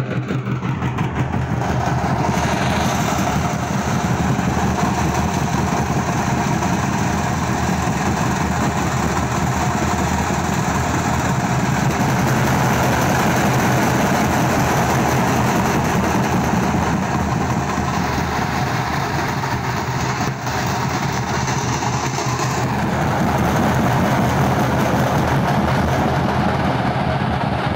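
A drum group beating many steel-shelled barrel drums and large bass drums together in a dense, unbroken rhythm.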